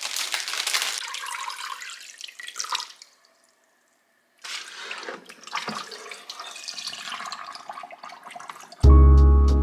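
Water splashing and dripping in a stainless steel kitchen sink as fruit is rinsed in a plastic colander. The colander is lifted out of a bowl of water, and the water is then poured out of the bowl into the sink. Loud music with a heavy bass comes in near the end.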